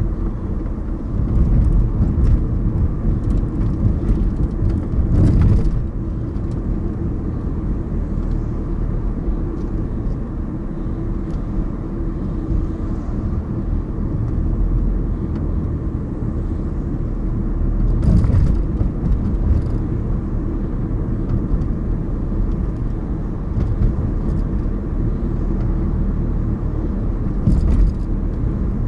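Car driving on city streets: a steady low rumble of engine and tyre road noise, with a few short knocks as it goes over bumps, about five seconds in, around eighteen seconds and near the end.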